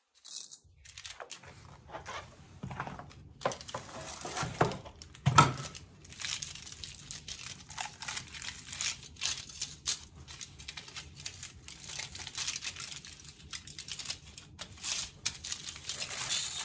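Aluminium foil crinkling and rustling as it is handled and peeled back from a slab of baked shortbread, in many quick irregular crackles, with one louder knock about five seconds in.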